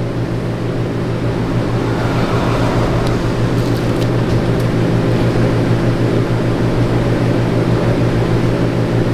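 Steady electric fan hum with a low, even drone, and a few faint small clicks about three to four and a half seconds in.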